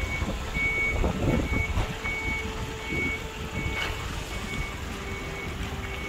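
A vehicle's reversing alarm beeping steadily, about two short high beeps a second, over the low rumble of engines idling close by.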